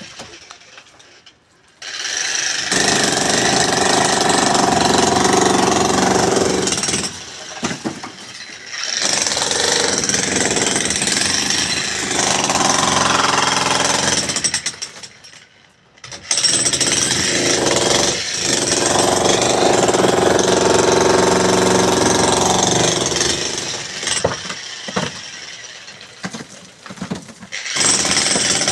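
A jackhammer-type demolition breaker hammering in long bursts of several seconds, stopping briefly between them and starting and stopping in quick short runs near the end.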